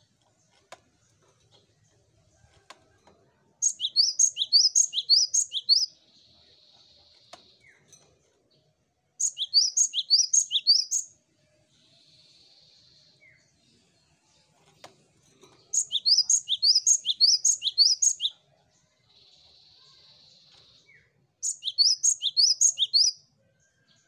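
Cinereous tit singing: four loud bouts of quick, repeated high whistled notes, the first three each followed by a short buzzy churr.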